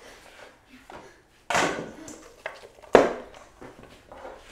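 A stainless steel mixing bowl knocked and set down on a wooden cutting board: two clanks about a second and a half apart, the second louder with a short ring, amid light handling of sliced onion.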